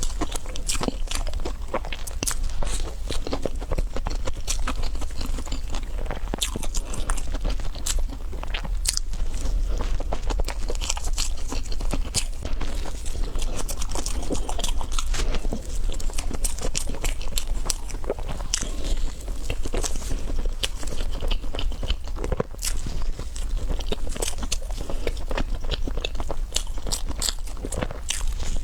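Close-miked biting, crunching and chewing of a chocolate dessert, a dense run of irregular crackles and mouth clicks with no pause.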